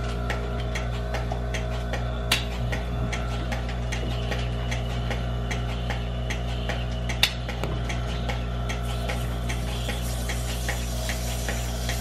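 Goat milking machine running: a steady hum under rapid, evenly spaced clicking of the pulsator, about three clicks a second, while the teat cups are put on. Two sharper knocks stand out, at about two seconds in and about seven seconds in.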